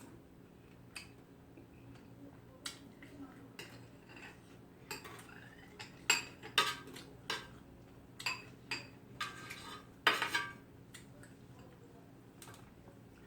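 Spoon and chopsticks clinking against bowls while eating: scattered light taps, busiest in the middle and about ten seconds in, over a steady low hum.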